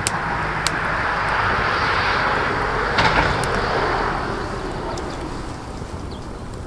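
Split firewood burning in a steel fire pit: scattered sharp crackles and pops over a rushing noise that swells in the first few seconds and then eases off.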